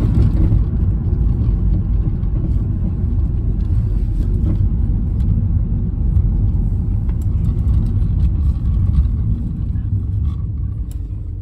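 Steady low rumble of a car's road and engine noise heard inside the cabin while driving, easing off near the end as the car slows.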